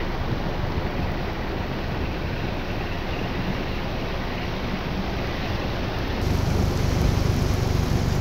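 Cyclone wind and heavy rain as a steady rushing noise, with wind buffeting the microphone. About six seconds in it switches to a louder, deeper wind rumble.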